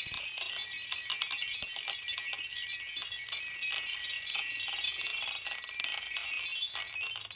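Many marbles clicking and clattering against each other and the track as they run down a marble run: a dense, continuous rattle of small clinks that stops suddenly at the end.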